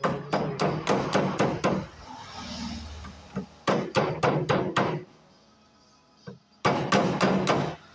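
Hammer blows driving a part home in a Towner gearbox during reassembly. They come as three runs of quick strikes, about four or five a second, with short pauses between the runs.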